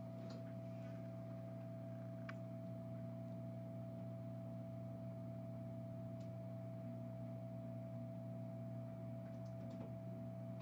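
Steady electrical hum from the repair bench, low with a thin higher tone over it, with a few faint small clicks scattered through.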